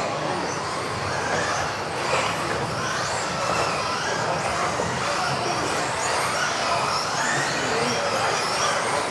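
Several electric RC off-road buggies racing, their motors giving overlapping high whines that keep rising and falling in pitch as the cars speed up and brake.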